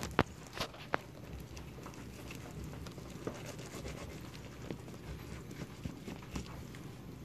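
Fillet knife working a crappie fillet off the ribs on a cutting board: a few sharp clicks in the first second as the blade taps and scrapes, then faint scattered ticks over a low steady hum.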